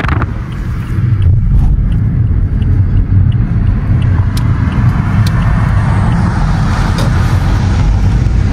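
Steady low rumble of engine and tyre noise inside the cabin of a moving Toyota car.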